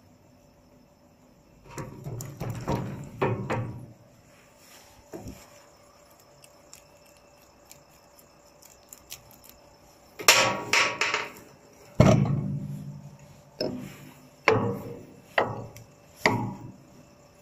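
Metal knocks and clanks on a Brinkmann concrete mixer's steel drum and lever mechanism. There are two bursts of clatter, then four sharp knocks about a second apart near the end.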